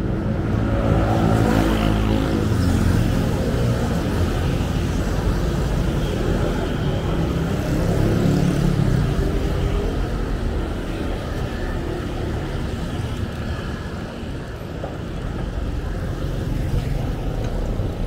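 Street traffic: motor vehicle engines running steadily as traffic goes by, with one vehicle passing close in the first few seconds and another about eight seconds in.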